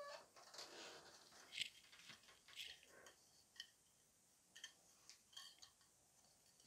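Faint, scattered scrapes and small clicks of tie-down wire and hands handling a glazed ceramic bonsai pot.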